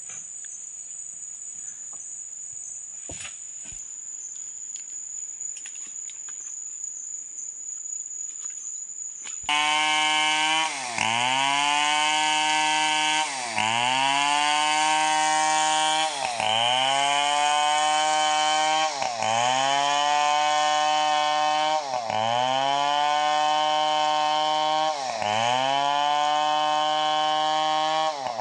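A steady high insect trill with a few light clicks, then, about nine seconds in, a Stihl 070 two-stroke chainsaw cutting in at full throttle as it rips a teak log lengthwise. Its pitch sags and recovers about every three seconds as the chain loads up in the cut.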